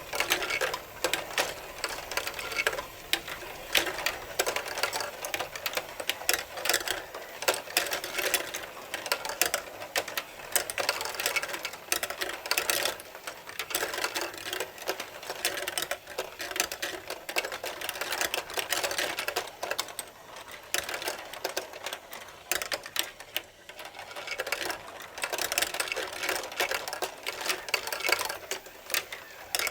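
Marbles rolling and clicking along the tracks of a building-block marble run, a dense, unbroken clatter of small knocks.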